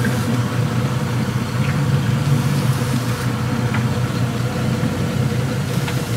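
Boat engine running steadily at low speed, a constant low hum with a thin steady whine above it.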